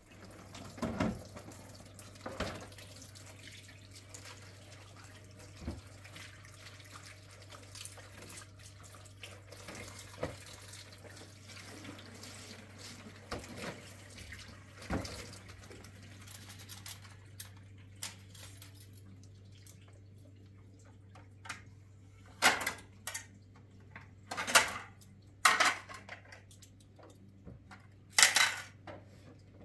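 Pots and dishes clattering while water is handled, over a steady low hum. A run of louder clatters comes near the end.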